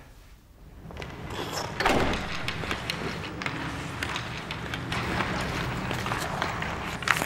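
Ice hockey practice on an indoor rink: skates scraping the ice and sticks and pucks clacking, with sharp knocks scattered throughout. It starts almost silent and comes up within the first two seconds.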